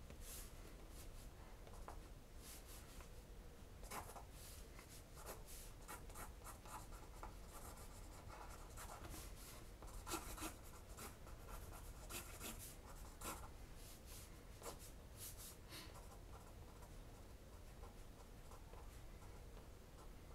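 Faint scratching of a Sharpie marker tip dragged across sketchbook paper in many quick, short strokes. The strokes are busiest through the first two-thirds and thin out near the end.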